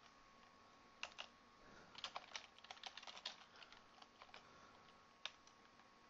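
Faint computer keyboard typing: scattered single keystrokes with a quicker run of them about two to three seconds in.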